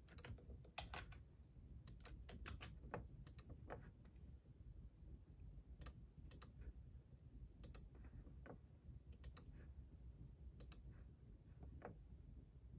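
Faint, irregular clicking of computer keys, several clicks coming in quick pairs.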